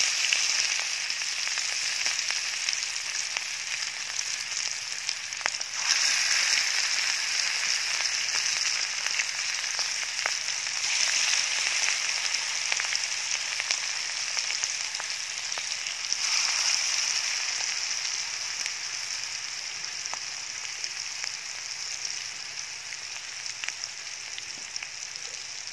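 Spice paste frying in hot oil in a wok, a steady sizzling hiss that slowly eases toward the end.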